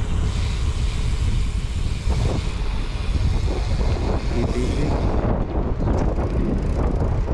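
Steady low rumble of wind and road noise over the microphone of a camera riding along on a moving vehicle.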